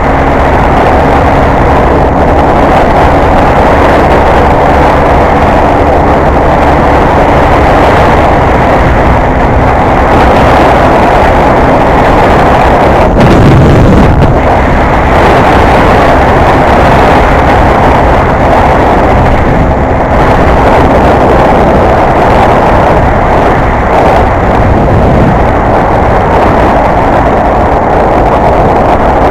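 Honda XR250 Tornado's single-cylinder four-stroke engine running steadily at road speed, with heavy wind noise on the microphone.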